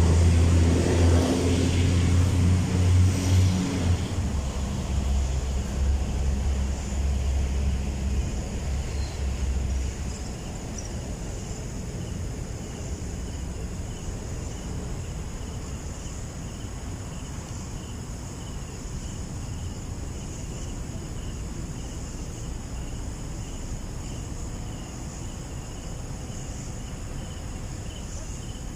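A vehicle engine running with a low, steady hum that dies away about ten seconds in. After that a faint, evenly pulsing trill of night insects carries on over a steady outdoor hiss.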